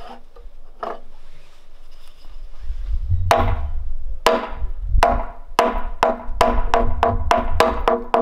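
Wooden semantron, a hanging wooden plank, struck with a wooden mallet. After a faint knock about a second in, the knocks start properly about three seconds in and come faster and faster, to about three a second by the end, each ringing briefly with a pitched tone.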